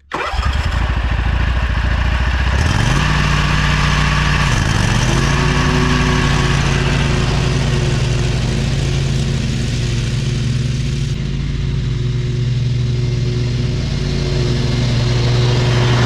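Riding lawn mower engine running with freshly sharpened blades cutting grass. The engine revs up about three seconds in, dips briefly, then runs steadily at high speed.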